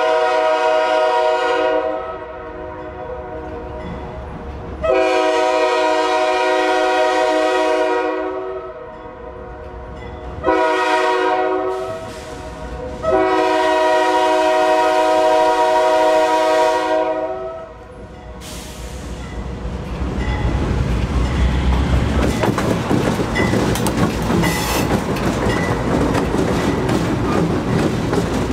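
Pan Am Railways GE C40-8 diesel locomotives sounding a chime horn in four blasts, long, long, short, long: the standard grade-crossing signal. The locomotives then pass close by with engine rumble and wheels clattering over the rail joints.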